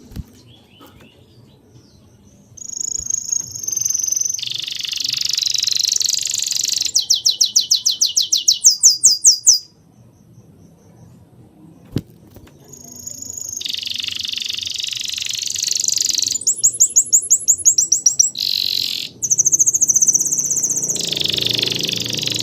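A songbird singing loud high-pitched phrases: a whistled note, a harsh buzzy chatter, then a fast trill of repeated notes. The song comes twice with a pause of a few seconds between.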